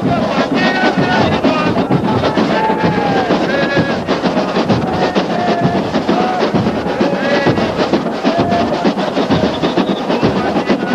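Samba school parade music: a bateria drumming a dense, steady samba beat while voices sing the samba-enredo over it.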